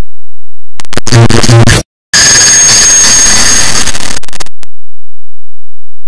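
A clock-ticking sound effect repeated and sped up so far that it no longer sounds like ticks but like harsh, very loud, clipped digital noise. A buzzy burst starts just under a second in, cuts out briefly near two seconds, then gives way to a longer hissing blast with a thin high whistle that stops about four and a half seconds in.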